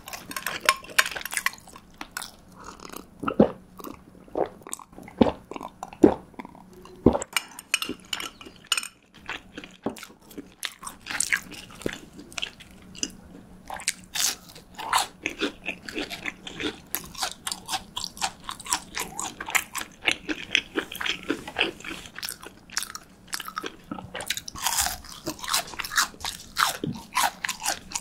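Close-miked eating sounds: crisp bites into breaded fried cheese sticks and wet chewing, a dense run of irregular crunches and mouth clicks.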